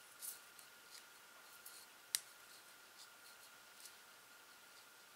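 Faint rustling and scraping of fingers working an anti-tangle sleeve over a leadcore swivel on a carp rig, with one sharp click about two seconds in, over a faint steady high hum.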